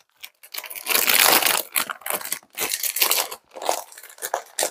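Plastic cookie packaging crinkling and tearing as it is opened by hand, in irregular bursts, loud in the microphone.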